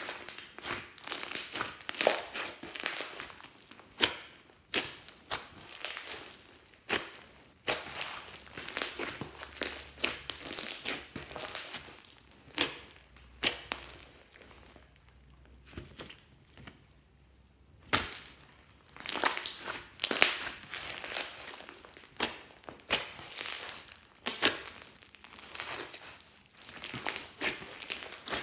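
Glossy slime with mixed-in bits being worked by hand: dense, irregular sharp clicks and pops, with a brief lull a little past the middle.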